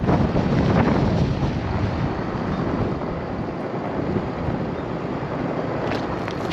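Wind buffeting the microphone: a steady rush of noise, heaviest in the low rumble, without any distinct events.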